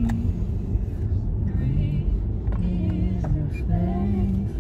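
Steady low rumble of a car cabin while driving, with a tune playing over it, its notes stepping up and down.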